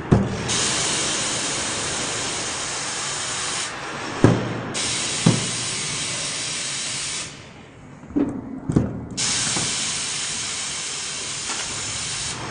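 A loud, steady hiss that stops and starts several times, with sharp knocks as plastic soap-mold tubes are set into and taken out of a soap pusher's metal trough.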